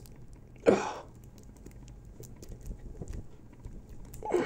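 Pliers gripping and pulling on a 3D-printed Nylon 618 part as it is stretched and twisted: faint handling ticks, with one short, louder sound just under a second in.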